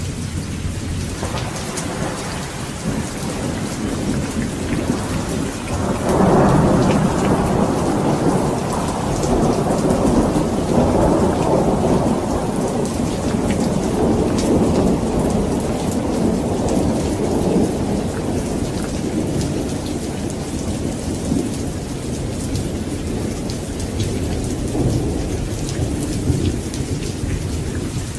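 Thunderstorm: steady rain falling, with rolling thunder. A rumble swells about six seconds in, rolls on for over ten seconds and slowly fades, and a smaller rumble comes near the end.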